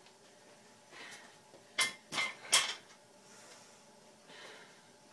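Three sharp metal clanks in quick succession about two seconds in, each with a brief ringing note: metal gym equipment knocked or handled.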